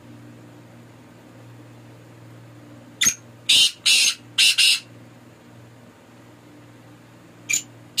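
Caged francolin (teetar) calling: a phrase of five harsh notes, a short one followed by four loud ones, about three seconds in, and a second phrase starting near the end.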